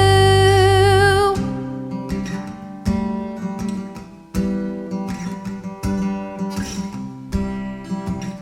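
Live band music: a held sung note with vibrato, over bass, ends about a second in. Then an acoustic guitar plays an instrumental break, with strummed chords about every second and a half and picked notes between them.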